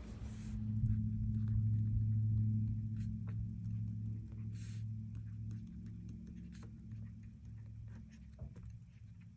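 Faint light ticks and scratches of a stylus writing on an Onyx Boox Nova Air e-ink tablet screen, over a low steady hum that is loudest in the first few seconds and then fades.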